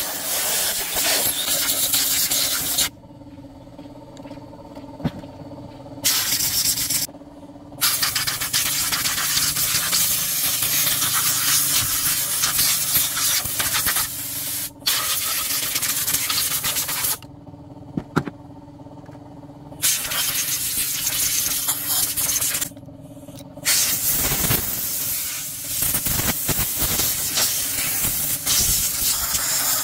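Compressed air hissing from an air blow gun, used to blow the dirt out of a diesel fuel injection pump and its gear. It comes in long blasts that stop and start several times, with a steady hum underneath that is heard in the pauses.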